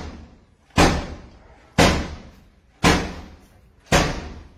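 Heavy blows slamming against a door, four of them about a second apart, each dying away with a short ringing tail.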